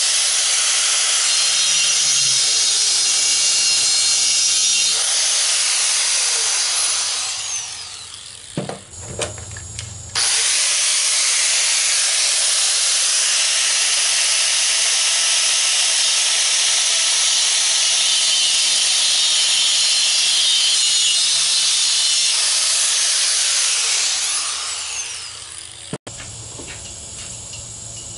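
Angle grinder with a thin cutoff wheel cutting the tongue slots into the steel top of a 20-pound propane tank: a loud, high grinding whine. It winds down with a falling pitch about seven seconds in, starts again abruptly about ten seconds in, and winds down again near the end, after which a quieter power-tool sound follows briefly.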